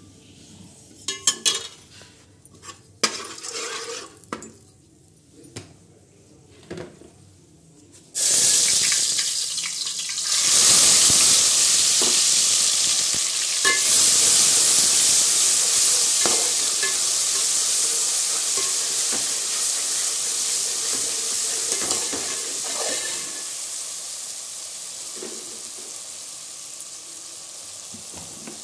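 Whole spices and bay leaves crackling lightly in hot oil in an aluminium pot, with a few clinks against the pot. About eight seconds in, an ingredient is tipped in and the oil breaks into a loud sizzle, which slowly dies down.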